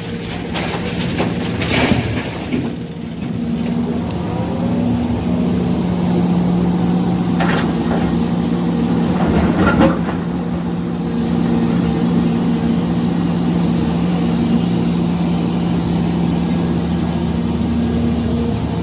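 JCB 3DX backhoe loader's diesel engine running steadily, with a few sharp knocks in the first couple of seconds and again around the middle.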